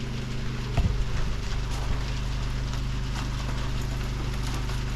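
Charcoal fire with hickory chips crackling and popping in a grill, over a steady low hum, with a single knock about a second in.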